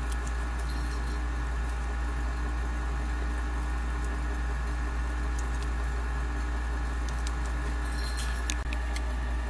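A steady low electrical hum with a few faint higher tones held throughout. A few faint clicks come near the end.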